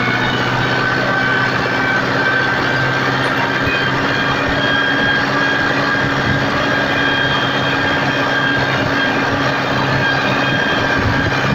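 Massey Ferguson 275 tractor's diesel engine running steadily at constant speed through a newly fitted muffler.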